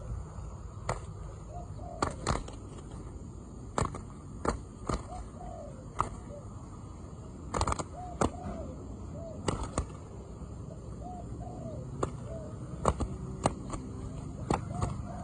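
Spotted dove cooing in short, repeated coos, with frequent sharp clicks throughout that are louder than the coos.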